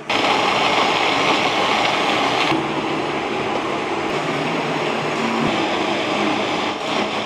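Electric blender running, blending red chillies, garlic and ginger with water into a chilli paste. It starts abruptly, and about two and a half seconds in its sound changes as the highest part drops away; it stops near the end.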